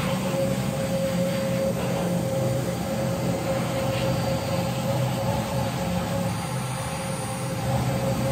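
Pet grooming blow dryer running, a steady drone with a constant hum.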